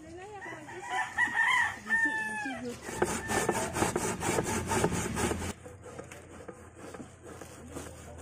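A rooster crows once in the first few seconds. Then a peeled cassava root is rubbed hard on a perforated metal sheet grater over a steel bowl, giving rapid scraping strokes about five a second that cut off suddenly about halfway through.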